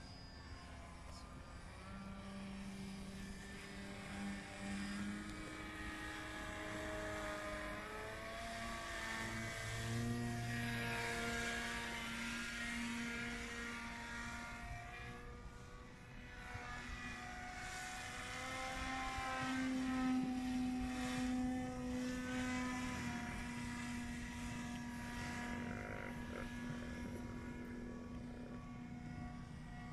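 Motor and propeller of a 3D-printed RC paramotor running in flight overhead: a steady pitched drone whose pitch drifts up and down. It grows louder twice, about a third of the way in and again about two thirds in, as it passes closer.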